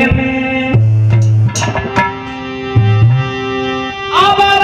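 Harmonium holding steady notes under tabla, with deep bass-drum strokes that bend upward in pitch, in a short instrumental break between sung lines. A man's singing voice comes back in near the end.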